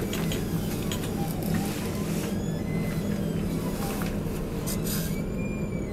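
Steady low hum inside a turning observation-wheel capsule, with scattered light clicks over it.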